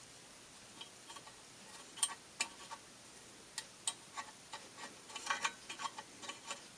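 Scattered light metallic clicks and taps of hand tools working on metal, irregular and getting busier near the end, as the remains of a broken screw are picked out of its threaded hole.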